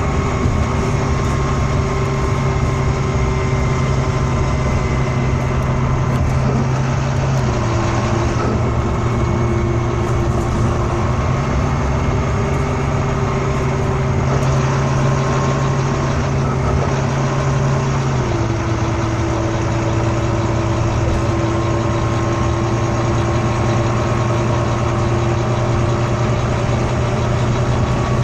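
Volvo B9TL bus's six-cylinder diesel engine running steadily, a low hum whose pitch steps down slightly about a quarter of the way in, back up soon after, and down again past halfway, with a faint steady high whine above it.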